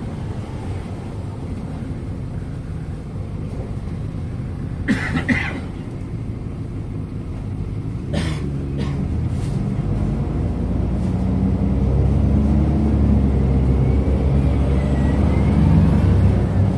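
MAZ-103 city bus running, heard from inside the passenger cabin as a steady low engine drone. There are two short sharp noises about five and eight seconds in. From about ten seconds in the engine grows louder and deeper.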